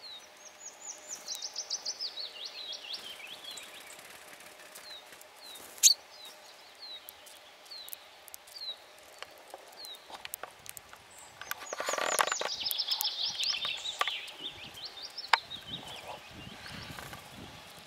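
Chaffinch song heard twice: a fast run of high notes falling in pitch and ending in a flourish, once at the start and again about halfway through. Single short high notes are scattered between the songs, and one sharp click about six seconds in is the loudest sound.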